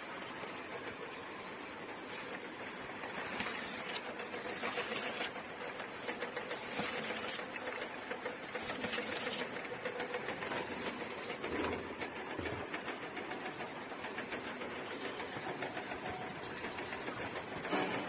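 Automatic bottling line running: the conveyor and labeling machine make a steady mechanical clatter of fine rapid clicks over a hiss.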